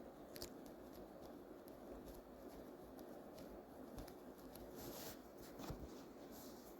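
Faint handling sounds of small plastic model parts being worked by hand: scattered light clicks and a few short scratchy rubbing strokes, the strongest around five seconds in, over a low room hum.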